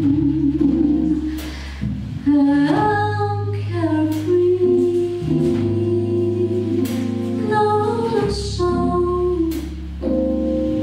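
Live jazz ballad: a woman singing long held notes, accompanied by a piano trio of piano, double bass and drums.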